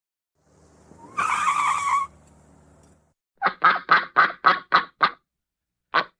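Car tires squealing loudly for under a second as a car pulls away, its engine running underneath. Then a rapid string of seven duck quacks and a single quack near the end.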